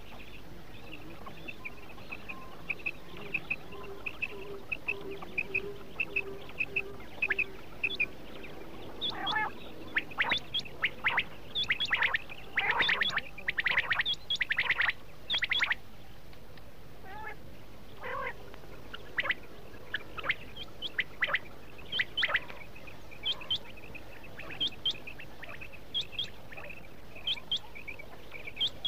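Quail calling in quick, sharp repeated notes, busiest and loudest in a dense cluster in the middle, then thinning out to spaced single calls.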